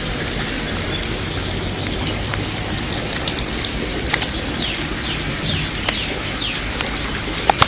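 Heavy rain pouring steadily during a hailstorm, with hailstones striking hard surfaces in scattered sharp clicks, the loudest near the end. A bird gives a few short falling chirps midway.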